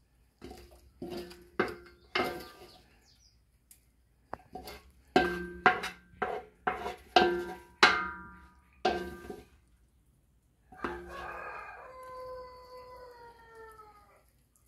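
A wooden spoon knocks and scrapes against an aluminium pot about a dozen times, each knock ringing briefly. Then a rooster crows once, a long call of about three seconds that slowly falls in pitch.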